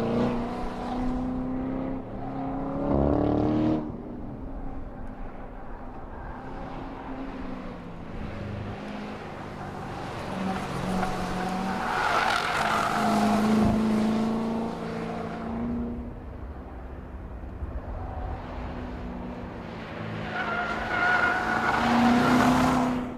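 2014 Chevrolet Corvette Stingray's 6.2-litre LT1 V8 revving up and easing off again and again as the car is driven hard around a cone course. Tyres squeal through the corners, loudest about halfway through and again near the end.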